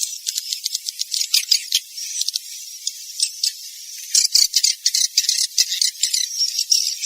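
Swiftlet roosting-call recording: a dense chorus of high twittering chirps and rapid clicks, growing louder and busier about four seconds in.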